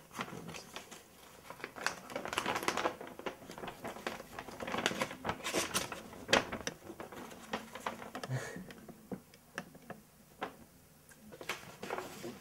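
Glossy paper sheets being handled: irregular rustling and crinkling with scattered small clicks and taps.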